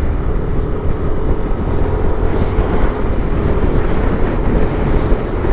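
Wind rushing over the microphone with motorcycle engine and road noise underneath, at a steady cruising pace.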